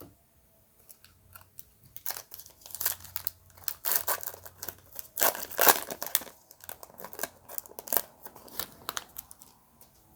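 A foil trading-card pack wrapper being torn open and crinkled, a dense run of sharp crackles and rustles that dies away near the end.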